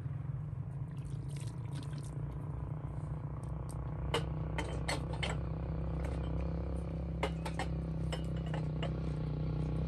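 Tableware clinking and knocking in scattered short clinks, thickest in the second half, over a steady low hum.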